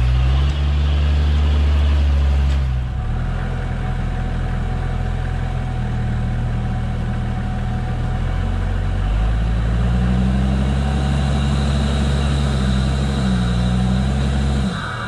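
Toyota Land Cruiser HZJ73's 1HZ inline-six diesel running steadily at low revs while the truck crawls over a rough dirt trail. Its sound changes about three seconds in and shifts a little again around the middle.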